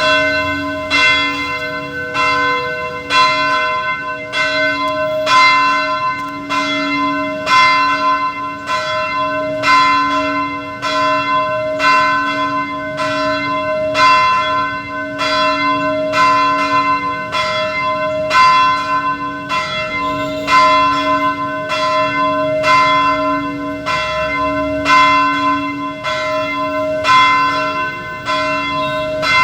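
Church bell ringing in a quick, steady run of strikes, each stroke ringing on into the next.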